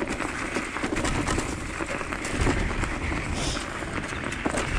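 Diggler dog scooter's tyres rolling along a woodland trail of crusty leftover snow and dry leaves: a steady crunching rumble full of small clicks and rattles from the bumps.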